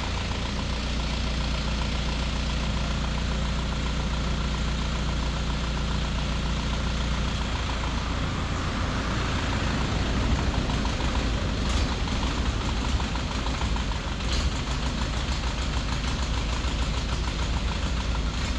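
An engine running steadily at idle, a low hum that turns rougher about halfway through, with a few sharp clicks near the middle.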